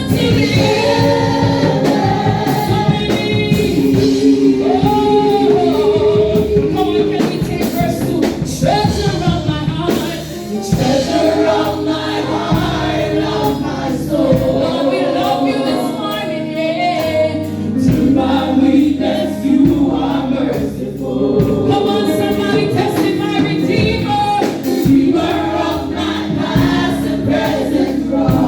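Gospel praise team singing with band accompaniment: several voices in harmony over keyboard and bass.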